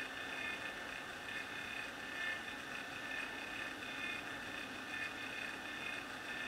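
Hot-air rework gun blowing steadily over a circuit board to reflow solder: a constant whirring hiss of fan and air with a faint steady whine.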